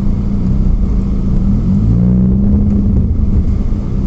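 Off-road vehicle's engine running with a heavy low rumble, its pitch rising briefly about halfway through as it revs up.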